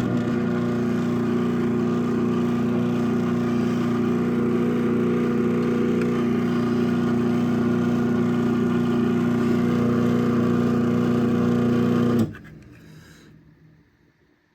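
Craftsman 1/2 hp chain-drive garage door opener running steadily as it opens the door: an even motor hum with a chain-drive whir. It cuts off suddenly about twelve seconds in as the door reaches its stop, then fades out over a second or so.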